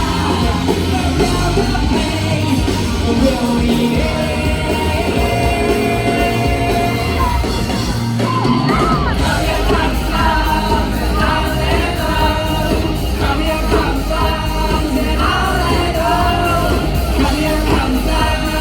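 Live rock band playing with sung vocals, heard in a large hall. The bass drops out briefly about eight seconds in, then the full band comes back in.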